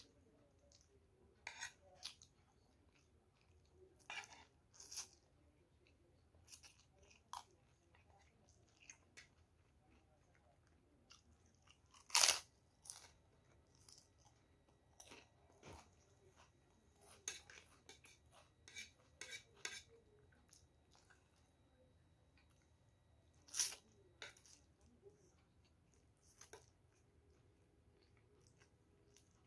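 Someone eating fried noodles and krupuk crackers: faint chewing with scattered sharp crunches and clicks, the two loudest about 12 and 24 seconds in.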